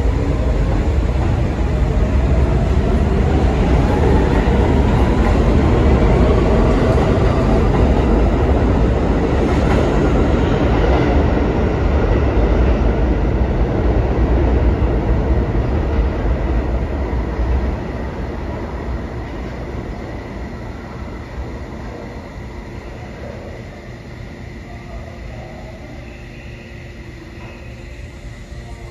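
New York City subway train pulling out of the station: a rising motor whine as it picks up speed over heavy rumble. The sound drops off about two-thirds of the way in and fades as the train leaves.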